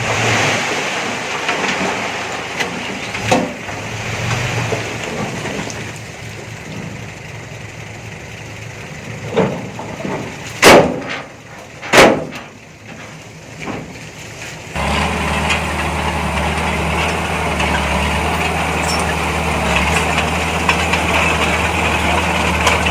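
Heavy diesel earthmoving machinery at work: a few sharp, loud bangs around the middle, then, from about two-thirds of the way through, a steady diesel engine running.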